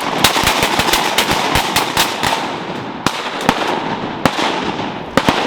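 Several shotguns firing a volley: a rapid string of overlapping shots for about the first two seconds, then single shots spaced out about a second apart, with echo ringing between them.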